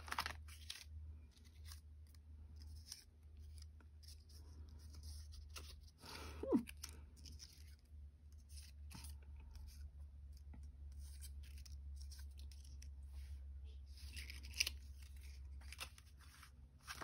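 Die-cut cardstock pieces being handled and shuffled by hand: quiet paper rustles and small clicks as the pieces slide against each other, over a low steady hum.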